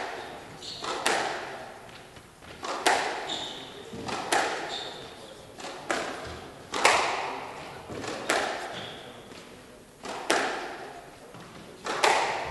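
Squash rally in an echoing hall: sharp racket strikes and the ball hitting the walls, roughly every one and a half seconds, each knock ringing on, with a few short squeaks of court shoes on the wooden floor.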